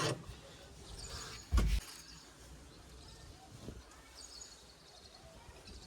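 Faint outdoor background with a few short bird chirps, and one brief low thump about a second and a half in.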